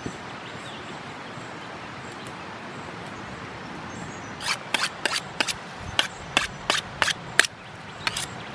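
A steady outdoor hiss, then about halfway through a quick, irregular run of about a dozen short, sharp scraping or clicking strokes that stops just before the end.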